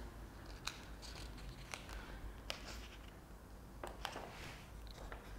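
A sheet of paper being peeled off a slab of tacky block printing ink on perspex: faint sticky crackles and ticks, with a short rustle of the paper about four seconds in.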